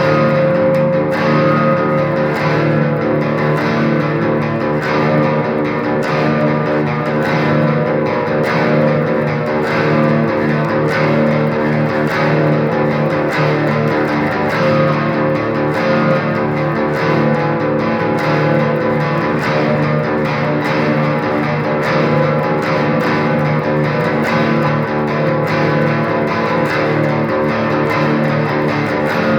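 Instrumental guitar music: picked or strummed notes ringing over one another at a steady level.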